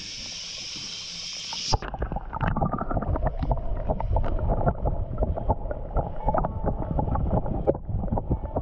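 A steady high hiss, then about two seconds in the camera goes under the water and the sound turns muffled: low water sloshing and bubbling with a dense run of small clicks and knocks from the water moving against the camera and the hand holding the fish.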